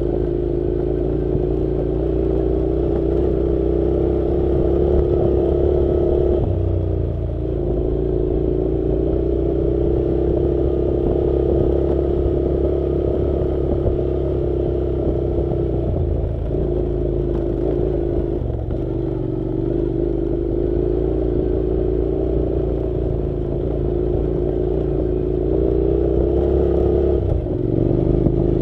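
Honda NC700's 670 cc parallel-twin motorcycle engine running at a steady pull while riding a dirt road. Its note dips briefly about four times as the throttle is eased, over some clatter from the rough track.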